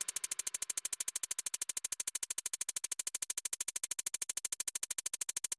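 A rapid, even train of electronic clicks, about ten a second at a steady level, a stuttering pulse left on the soundtrack once the background music stops.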